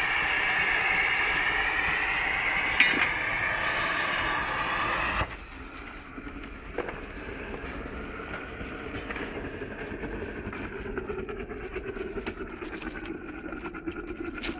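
Gas preheating burner of a thermite rail-weld mould, a loud steady rush that cuts off suddenly about five seconds in. After it stops, the thermite charge burns in its crucible with a quieter flame noise and scattered sharp crackles.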